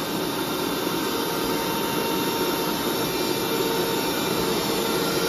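Hoover SteamVac SpinScrub carpet cleaner's vacuum motor running steadily and pretty loud, with a constant whine in it, as it sucks up water through the hose.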